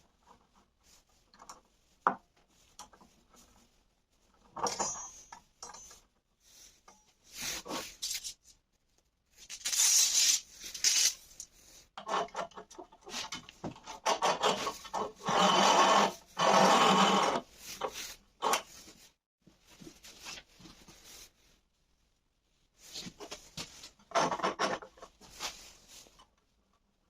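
Hand work on wood: irregular rubbing and scraping strokes in stretches of a second or two, heaviest in the middle, with a sharp click about two seconds in.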